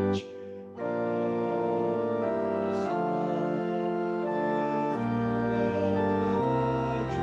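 Church organ playing a hymn tune in sustained chords, with a brief break between phrases just after the start.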